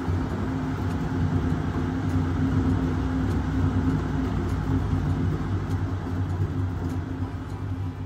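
Cat exercise wheel rumbling steadily on its rollers as a cat runs in it, a low drone that eases off near the end as the wheel slows.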